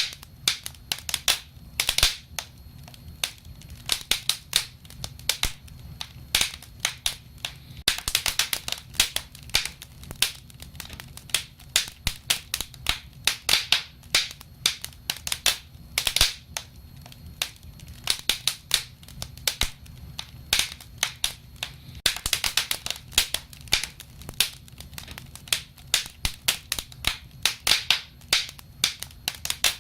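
Wood fire crackling: irregular sharp pops and snaps in quick clusters over a low, steady background hum.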